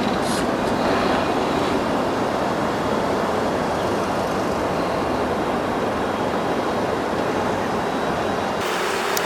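Scale RC crawler truck driving off-road: a steady mix of its small electric motor and geared drivetrain with its tyres working over rough ground.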